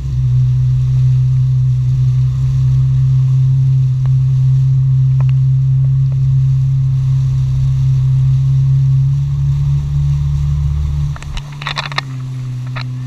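Jet ski engine running steadily at speed, then easing off sharply about eleven seconds in and carrying on at a lower, quieter level.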